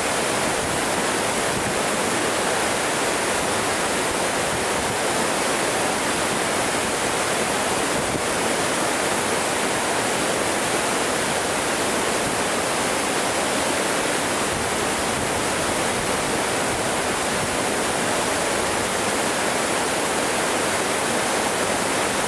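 Waterfall and the rocky white-water cascade below it rushing steadily, a constant hiss of falling and tumbling water.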